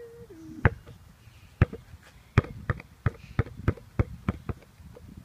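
Basketball dribbled on concrete: about ten sharp bounces, a second apart at first, then quickening to about three a second, each with a short ring.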